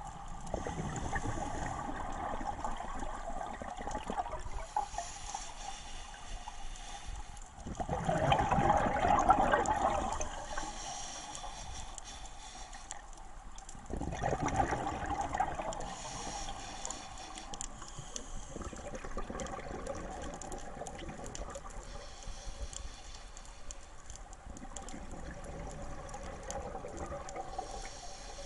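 Scuba diver's exhaled regulator bubbles burbling underwater, in two bursts of about two seconds each, the first about eight seconds in and the next some six seconds later, over a steady underwater hiss.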